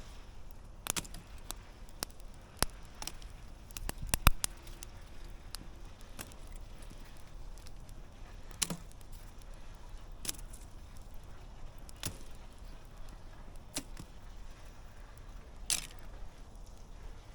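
Burning campfire crackling, with irregular sharp pops of the burning wood over a steady low background noise. A quick cluster of the loudest pops comes about four seconds in.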